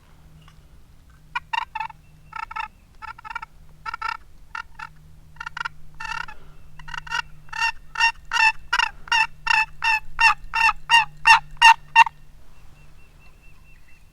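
Turkey yelps: scattered at first, then a quick run of about twenty notes that grows steadily louder and stops about twelve seconds in.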